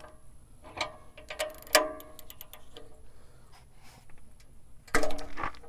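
3/8-inch drive ratchet clicking as it is worked back and forth on an O2 sensor socket to break a seized oxygen sensor loose, with a sharp metallic clank a little under two seconds in and a louder knock about five seconds in.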